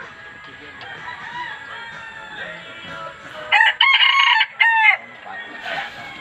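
A rooster crowing once, a loud multi-part cock-a-doodle-doo lasting about a second and a half, a little past the middle.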